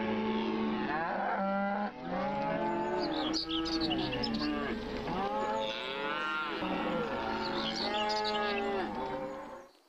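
Cattle mooing: a run of long calls that rise and fall in pitch, some overlapping one another, until the sound stops abruptly near the end.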